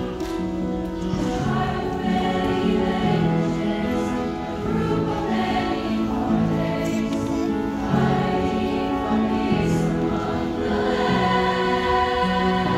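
A large combined choir of schoolchildren and teenagers singing together, holding each note for about half a second to a second before moving to the next.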